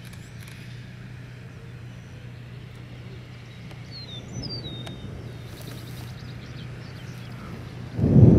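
Open-country outdoor ambience with a steady low hum, a few short falling bird chirps about four seconds in, and a sudden loud low rumble near the end.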